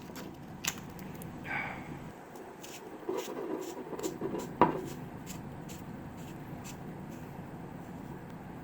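Small metal tactical flashlight being handled as its tail cap is screwed back on: light clicks and a brief scrape, a cluster of handling noise with one sharp click about halfway through, and a run of faint, evenly spaced ticks.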